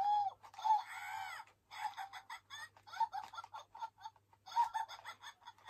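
Shrill, chattering cackle of rapid short squawks: the giggling laugh of Salacious Crumb, the Star Wars creature, given as the answer of a Salacious Crumb figure.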